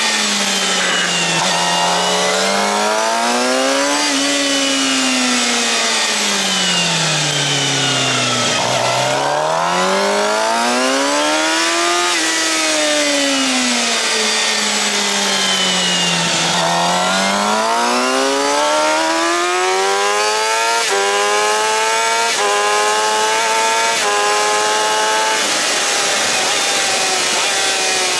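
Suzuki GSX-R750's inline-four engine, through a Yoshimura R-11 slip-on exhaust, ridden hard on a track: the revs climb out of each corner and fall away under braking three times over. It then runs up through several quick upshifts in a row, each a short step down in pitch, before dropping again near the end. Wind rushes over the microphone throughout.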